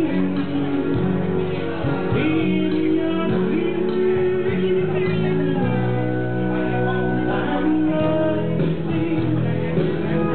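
A woman singing a song into a handheld microphone over accompanying music.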